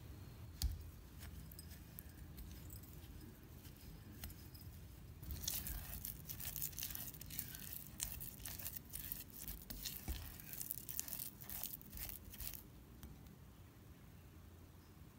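A spatula mashing and scraping butter into icing sugar and black sesame powder against the sides of a glass measuring jug: a dense run of quick scraping, crackling strokes from about five seconds in until about twelve seconds, after a single soft knock near the start.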